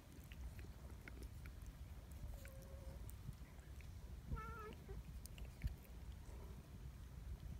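Large black cat giving two short, soft calls: a brief steady one a couple of seconds in, then a wavering meow about halfway through.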